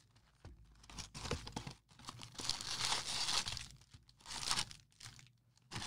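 Wrapping being torn and crinkled off a 2020 Bowman Draft trading-card box as it is opened. The tearing comes in several short spells, with a longer one about two seconds in.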